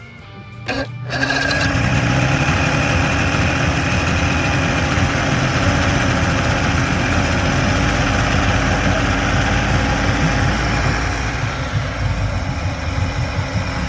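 Chrysler 90 hp two-stroke outboard motor catching about a second in, then running steadily and fast as it idles cold after choking and priming.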